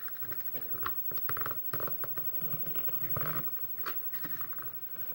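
Small metal tool clicking and scraping against a lock cylinder's tight retaining clip as it is pried at, in irregular short clicks with a louder scrape about three seconds in.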